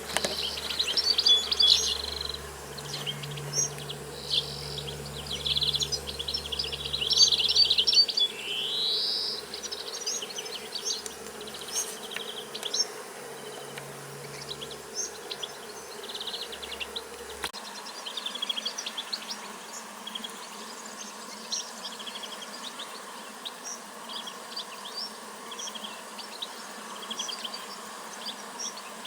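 Nature ambience of many short insect trills and small bird chirps, with a low steady insect buzz that stops abruptly a little past halfway.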